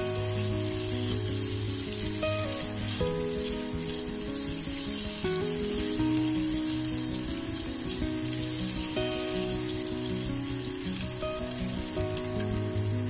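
Hot oil sizzling steadily around whole boiled eggs frying in a nonstick pan, with background music playing over it.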